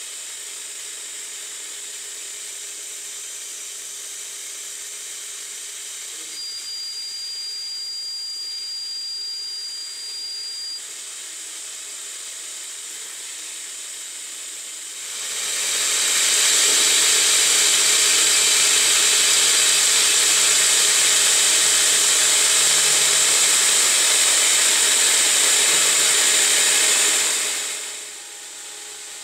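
9x20 CNC benchtop lathe running with a steady hiss from the spray nozzle aimed at the spinning part. A thin high whine sounds for about four seconds. About halfway through, a much louder hiss rises and holds for about twelve seconds, then drops away.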